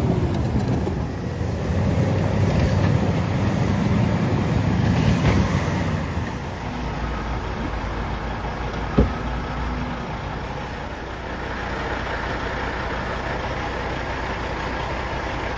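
Heavy vehicle engine running under load, with one sharp knock about nine seconds in.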